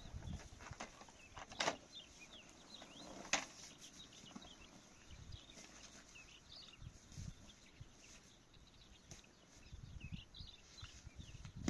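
Small birds chirping intermittently in the background, with two sharp knocks a couple of seconds apart near the start.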